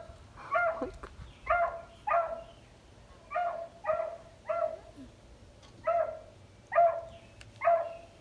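A dog barking repeatedly in short, fairly high-pitched barks, about ten of them, often in pairs.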